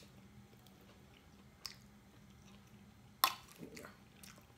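A cooked crab leg shell being broken apart by hand: a small click, then one sharp crack about three seconds in, followed by a few fainter clicks as the shell pieces are picked apart.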